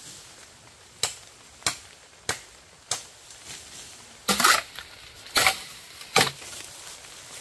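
Bamboo being chopped with a blade: four sharp, evenly spaced strikes, then three louder, longer chops in the second half.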